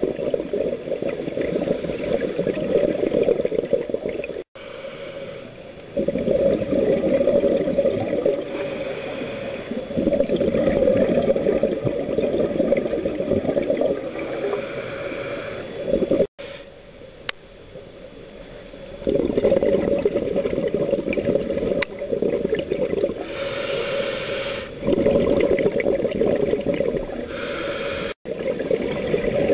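Muffled underwater bubbling and rushing from a scuba diver's regulator, coming in loud stretches of a few seconds with quieter gaps between breaths. The sound drops out suddenly three times.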